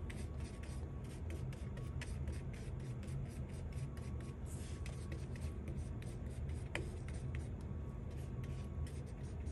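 Paintbrush stirring and scraping acrylic paint on a paper plate, a quick run of short scratchy strokes, mixing blue and red into purple. A steady low hum lies underneath.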